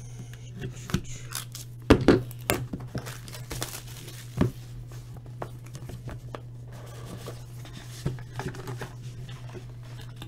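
Sealed trading-card hobby box being opened by hand: plastic wrap tearing and crinkling and cardboard rustling, with a few sharp clicks about two seconds in and again a couple of seconds later.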